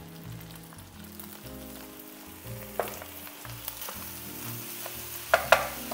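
Fried rice sizzling in a hot wok as it is stirred with a wooden spoon, with a sharp knock of the spoon on the wok about three seconds in and two louder knocks near the end.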